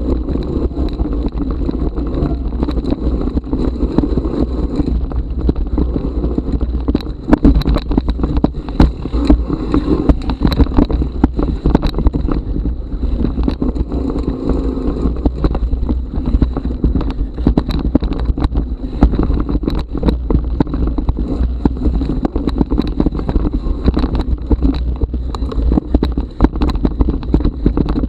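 Mountain bike rolling down a rough forest singletrack: a steady low rumble with frequent sharp knocks and rattles as the wheels hit roots and rocks.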